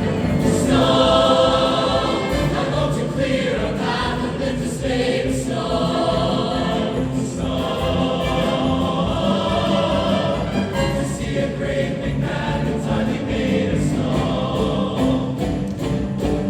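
A choir singing, in phrases of long held notes.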